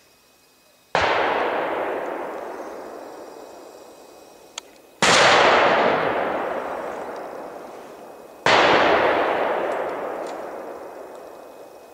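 Three hunting rifle shots, the second about four seconds after the first and the third about three and a half seconds later. Each crack is followed by a long echo through the forest that fades over several seconds.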